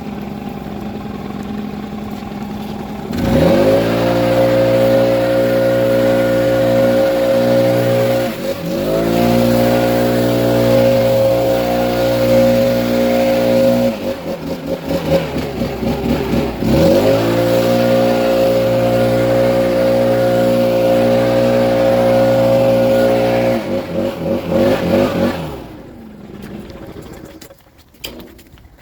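Gas leaf blower's small engine revved from idle to full throttle and held there, dropping back twice for a few seconds before coming up again, then let off near the end.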